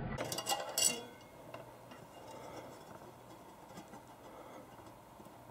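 A few light clicks and a rub in the first second, the handling of a recoil spring in a PVC tube being pressed on a dial scale, then faint room hum with a few weak ticks.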